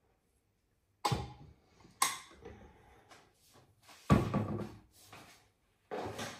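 A few sudden knocks and thuds, as of household objects or doors being handled, starting about a second in, with the loudest about four seconds in.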